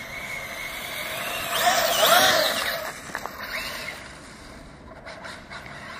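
Arrma Felony RC car with a sensored XC E5690 brushless motor driving past, its electric motor whine bending up and down in pitch. The sound swells to its loudest about two seconds in, then fades away.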